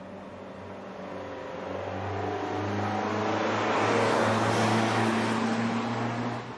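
A motor vehicle's engine accelerating as it passes, growing louder to a peak a few seconds in and falling away suddenly near the end.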